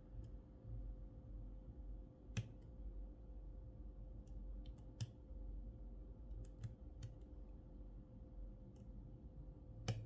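Faint, scattered ticks and clicks of a hook pick working the pins inside a DOM Sigma euro cylinder, over a steady faint hum. A sharper click near the end is put down to the pick touching the keyway warding.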